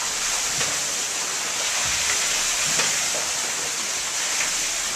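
Steam beam engine running: a steady hiss of steam with a few faint knocks from its turning gearing.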